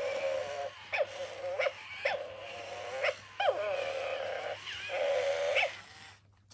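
MGA Georgie robotic puppy playing recorded puppy sounds from its speaker in tug-of-war mode while its rope toy is pulled: a quick series of short pitched dog-like calls that stops about six seconds in.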